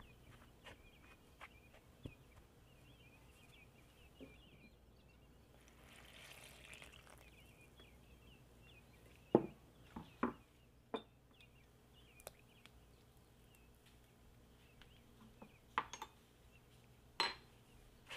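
Faint kitchen handling sounds: a metal bench scraper scraping through flour in a wooden bowl, with water poured into the flour for about a second, roughly six seconds in. Several sharp knocks and taps follow, the loudest a few seconds after the pour and again near the end.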